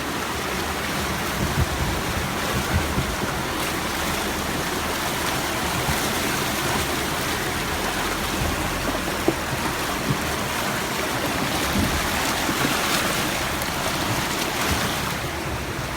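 Steady rush and splash of river water around a Jeep wading through the Verde River.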